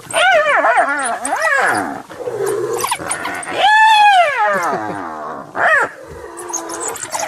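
African wild dogs and a spotted hyena squabbling at a kill: high-pitched squeals and yelps, with a flurry of quick wavering calls at the start, one long call that rises and falls about halfway, and a short one near the end.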